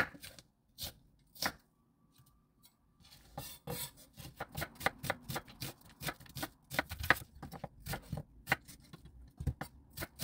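Chef's knife slicing an onion on a wooden cutting board, each cut ending in a knock of the blade on the board. There are a few separate cuts at first, then from about three seconds in a quick, steady run of several slices a second.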